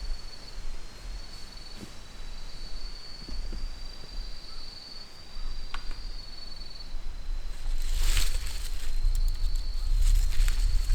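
An insect trilling steadily on one high pitch, with a low rumble that grows in the second half. Short bursts of rustling come about two-thirds of the way in and again near the end.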